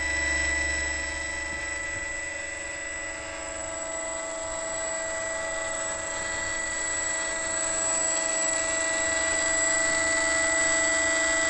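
Electric motor of an RC plane spinning its propeller at a steady throttle. It makes a constant high whine over a low airy rumble, with no change in pitch.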